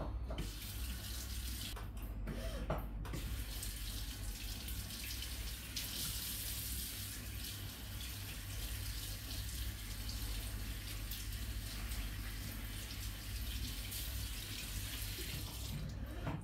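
Tap water running steadily from a gooseneck faucet into a basin, splashing as the client's feet are rinsed under it.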